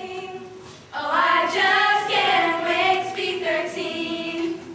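A small group of girls singing together unaccompanied, a cappella. The singing dips briefly just before a second in, then comes back louder.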